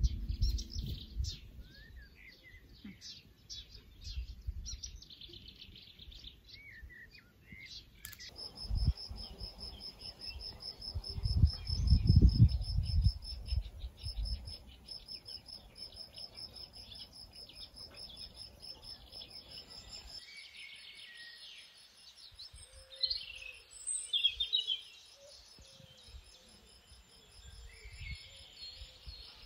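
Outdoor garden birdsong: assorted small birds chirping and twittering. In the middle stretch a fast, even run of high, repeated chirps runs for about twelve seconds, with low rumbles on the microphone that are loudest about twelve seconds in. Scattered chirping returns near the end.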